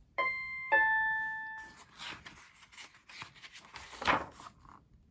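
Two-tone doorbell chime ringing 'ding-dong': a higher note, then a lower note that rings out for about a second. A few faint soft sounds follow.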